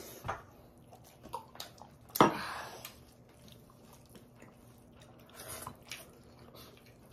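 Close-up eating sounds: chewing, with fingers working rice and chicken on steel plates, and scattered small clicks. A single sharp knock about two seconds in is the loudest sound.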